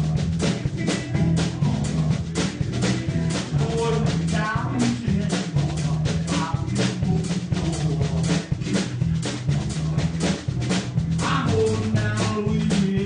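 Blues music: a drum kit keeps a steady beat under a bass line and guitar, with a bending melodic lead line coming in twice.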